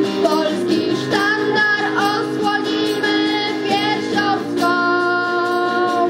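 Young girls' voices singing a song, accompanied by a strummed acoustic guitar.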